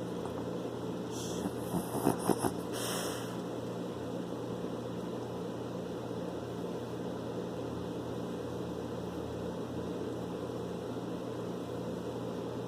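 Steady low hum and hiss, with a few brief rustles and clicks in the first three seconds.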